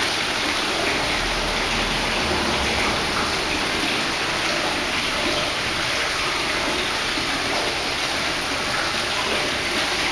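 Steady hiss of splashing water, with no breaks and no separate strikes.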